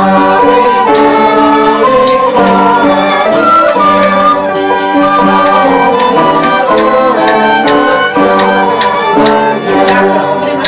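Live acoustic guitar strummed in a steady rhythm, with a fiddle playing the melody over it.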